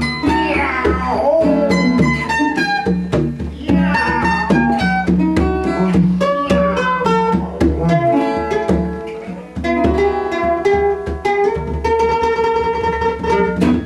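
Acoustic guitars and a mandolin playing with hand-struck conga drums, a few notes sliding downward early on. The band ends on a held chord that cuts off at the very end.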